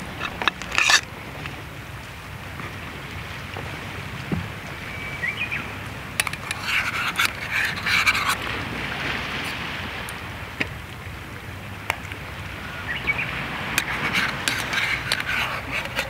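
Chopsticks clicking and scraping against a frying pan in scattered bursts as sausages are picked out, over a steady background hiss.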